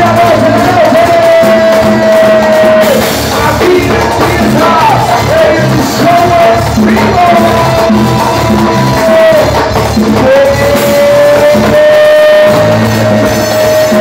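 A live Latin band playing loudly, with a drum kit and congas keeping the beat under a melody of long held notes that slide between pitches.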